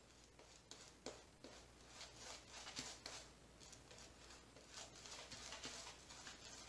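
Faint, soft swishing of a badger shaving brush working an airy, bubbly shaving-soap lather over the cheek and chin, in short irregular strokes with a few small clicks.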